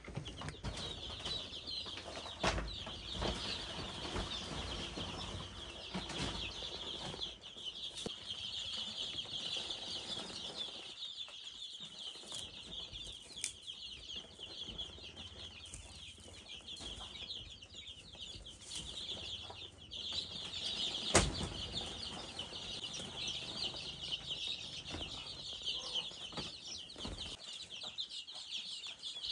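Many chicks peeping at once in a continuous high chorus, with scattered knocks and one sharp bang about two-thirds of the way through.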